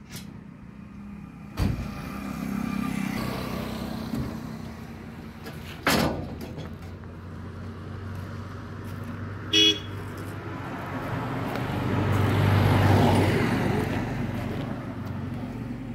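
Two sharp bangs about four seconds apart, then a short vehicle horn toot, followed by a vehicle's noise with a low hum that swells and fades near the end.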